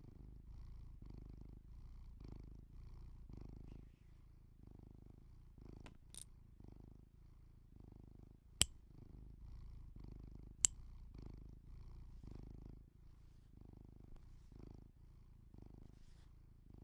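Metal snap hooks on a leather bag strap clicking sharply three times as they are clipped and unclipped, the loudest two about a second and a half apart and two seconds apart. Behind them, a low pulsing sound swells and fades about once a second.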